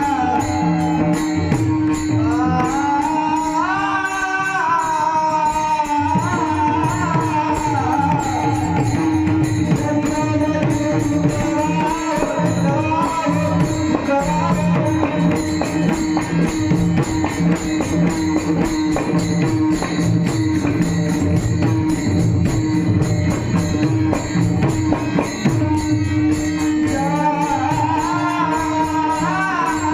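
Devotional singing over a steady held drone note and a continuous beat of rhythmic percussion, the sung melody rising and falling in long lines.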